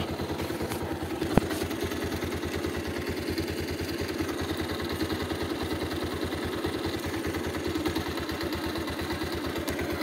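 Motorcycle engine idling steadily with an even low putter, with one sharp click about a second and a half in.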